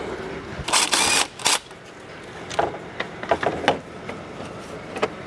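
A cordless power ratchet runs briefly about a second in, backing out a 10 mm bolt, followed by a second short burst just after. Then come light clicks as the tool and bolt are handled.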